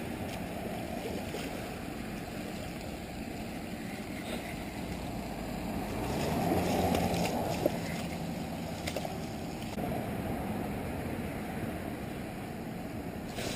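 Steady low rushing noise, with a louder swell of splashing about six seconds in as a hooked common carp thrashes in the shallow water at the bank, ending in a sharp tick.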